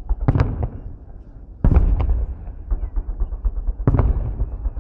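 Salute fireworks shells bursting: three loud booms, about a second and a half to two seconds apart, each trailed by a rattle of smaller crackling pops.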